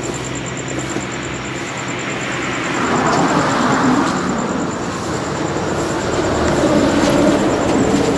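Street traffic: motor vehicles driving past close by, swelling as one goes past about three to four seconds in and again around seven seconds.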